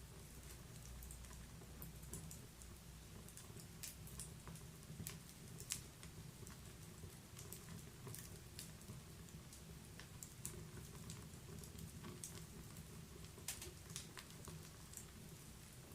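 Wood fire crackling softly in a fireplace: irregular sharp pops and snaps over a low, steady rumble.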